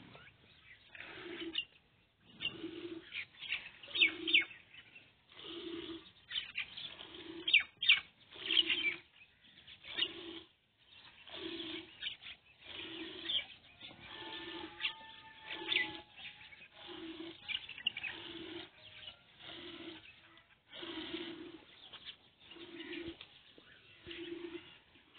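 Water buffalo being hand-milked: quick squirts of milk hitting a steel pot in an uneven run, with a short low pulse about once a second beneath them.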